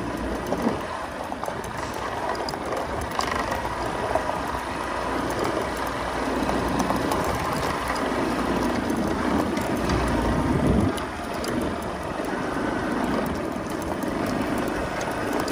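Small motorcycle engine running while riding a rough dirt track, getting louder up to about eleven seconds in and then dropping back.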